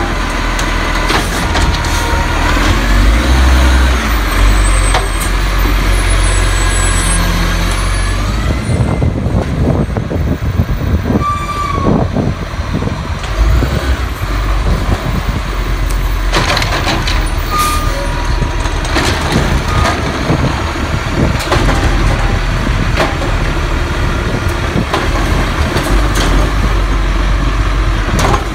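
Scorpion automated side-loader garbage truck working a row of carts: the diesel engine runs under load while the hydraulic arm sets down, grabs and lifts carts, with knocks from the carts and arm and short air-brake hisses.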